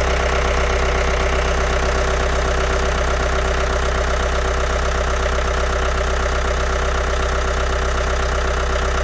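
Naturally aspirated Ford diesel engine idling steadily, freshly rebuilt after a major overhaul.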